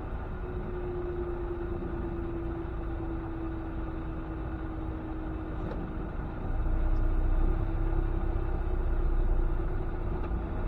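Semi truck's engine and rumble heard inside the cab while driving slowly, with a steady drone that sags slightly in pitch; the low rumble grows louder about six and a half seconds in.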